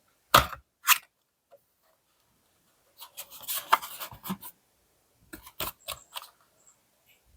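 Toy packaging being handled and opened: two sharp clicks, then a second and a half of rustling and scraping, then a few more clicks.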